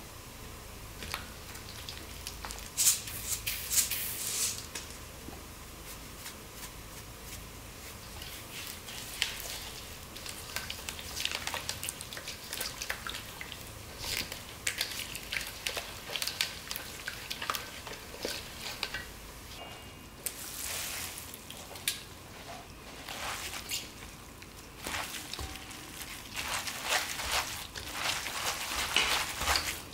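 A spatula stirring a thick, wet chili-paste sauce in a stainless steel mixing bowl: repeated wet scraping and squishing strokes with occasional sharp clicks against the metal. Near the end, gloved hands squish noodles through the sauce.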